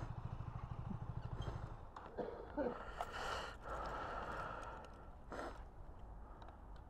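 Motorcycle engine idling with an even low beat that stops about two seconds in. A broad rushing noise follows for a couple of seconds.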